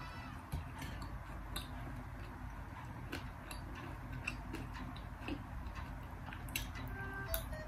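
Eating with a metal fork: scattered light clicks and taps of the fork against the dish, mixed with chewing, over a low steady hum.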